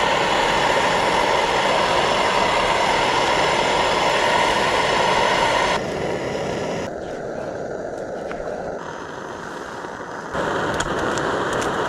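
Camp stove burner hissing steadily while breakfast cooks. The sound drops abruptly about six seconds in and comes back up near the end.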